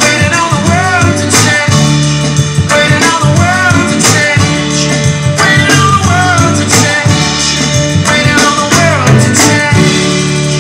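Music with a singing voice over sustained bass notes and a percussive beat; about ten seconds in the beat stops and a low note is held as the music fades.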